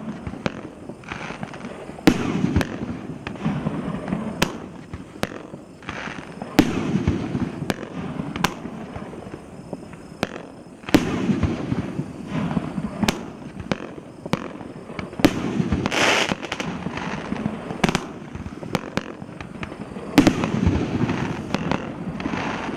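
Megabanger 'Not My Circus' 500-gram nine-shot consumer fireworks cake firing its shots one after another: sharp launch reports and bursts overhead at irregular intervals, each followed by a rumbling tail.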